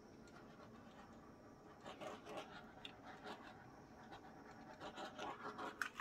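Faint handling noises: a low steady hiss, then from about two seconds in a run of light scratches and small clicks, growing busier toward the end, as a small handheld torch is lifted away and put down.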